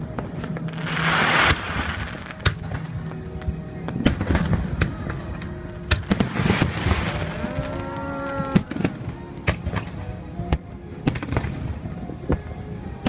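Aerial fireworks going off in quick succession: many sharp bangs and crackles, with a hissing rush about a second in and again around six seconds in.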